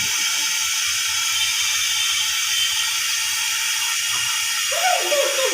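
Steady hiss of steam rising from a steel vessel of hot water set up for steam inhalation.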